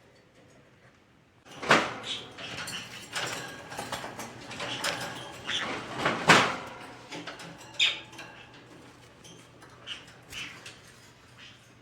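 Pet parrots moving about: scratchy rustling and small clicks, two sharper knocks about two and six seconds in, and a few brief high chirps near the end.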